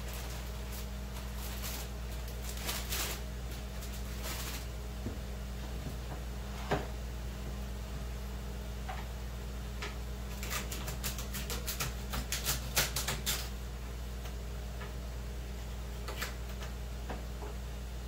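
A plastic bag of celery crinkling, then about ten seconds in a quick run of sharp knocks as a knife chops celery stalks against a cutting board, over a steady low hum.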